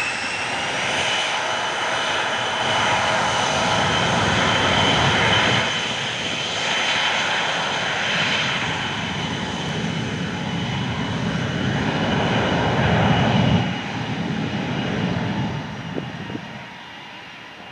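Bombardier CRJ-200 regional jet's twin rear-mounted GE CF34 turbofans at takeoff power on the takeoff roll: a steady high whine over a loud roar. The sound drops away in the last few seconds as the jet moves off down the runway.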